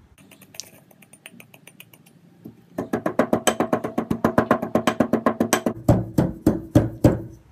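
Brass pestle pounding fenugreek seeds in a brass mortar: light taps at first, then from about three seconds in a fast run of sharp metal strikes with the brass ringing between them, turning into slower, heavier blows near the end.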